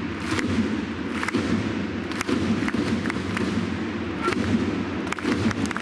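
Football stadium crowd sound, with a run of dull thumps about once a second.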